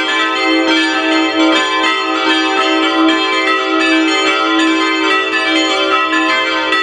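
Full peal of five church bells from the Rincker foundry, tuned e'' g'' a'' c''' d''', ringing together. Their strikes come several times a second in an overlapping, irregular sequence, each tone ringing on under the next.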